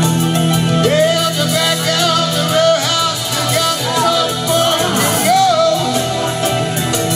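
Live rock-blues music: keyboard playing with a voice singing over it. The sung line starts about a second in and trails off about six seconds in.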